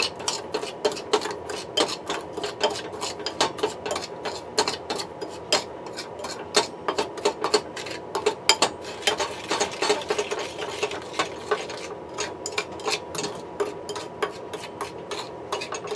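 A spoon stirring a thick soy sauce, brown sugar and cornstarch mixture in a ceramic bowl, clinking against the bowl in quick, uneven strokes, about three or four a second. A faint steady hum runs underneath.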